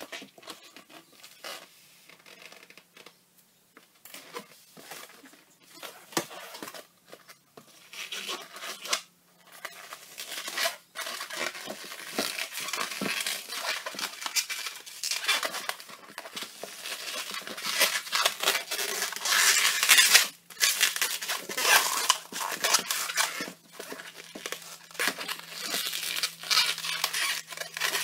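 A blue 260Q latex modelling balloon being handled and twisted by hand: the latex squeaks and rubs against the fingers in quick, irregular bursts. It is faint for the first several seconds and much louder and busier from about ten seconds in.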